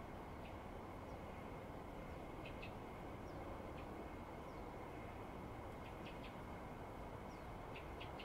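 Faint, scattered chirps of small birds, short high notes coming every second or so at irregular times, over a steady background hiss.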